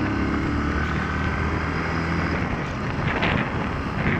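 Motorcycle engine running at a steady pitch, with wind rushing over the rider's microphone while riding.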